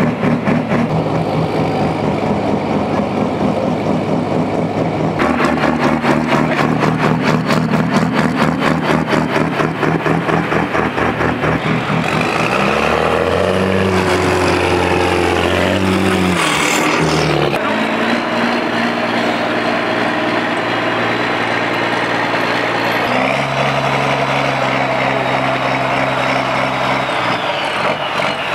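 Pulling tractor's engine running loud with a fast pulsing beat, its pitch sweeping and then dropping sharply a little past halfway, then running steadier.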